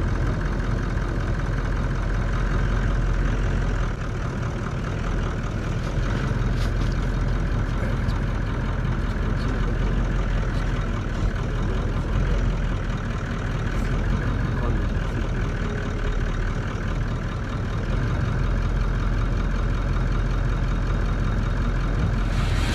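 A vehicle engine idling steadily, a low rumble with a few faint clicks over it.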